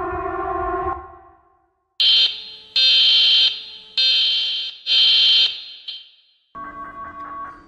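Emergency alert sound effects. A steady, buzzing alarm tone fades out about a second in. Then come four loud, high-pitched alarm beeps like a fire alarm. Near the end a softer chime-like tune begins.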